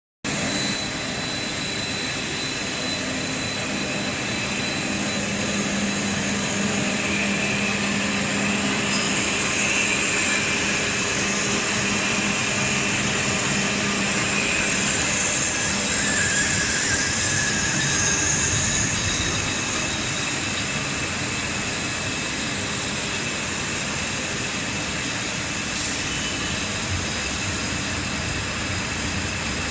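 Medium copper wire drawing machine running at steady speed: a continuous mechanical noise with a low hum and a few faint high whines that come and go.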